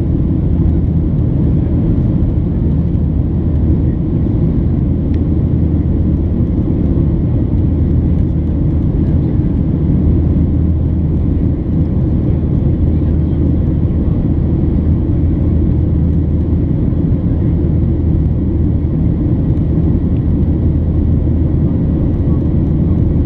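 Steady cabin noise of a Boeing 737-800 in flight, heard at a window seat over the wing: the drone of its CFM56-7B turbofan engines and the rush of airflow, a deep even rumble that holds level.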